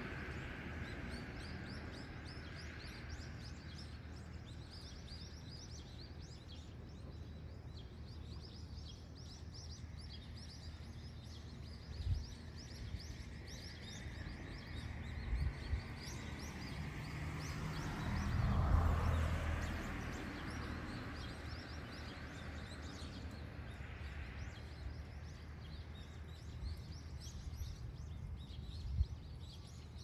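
Outdoor riverside ambience: a low steady rumble with many short high chirps throughout, a few dull thumps, and a broader swell of noise a little past halfway.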